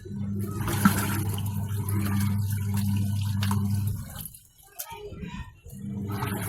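Haier top-loading washing machine's wash motor humming as it churns water and clothes. It stops about four seconds in and starts again near the end, as the wash timer pauses and reverses the agitation.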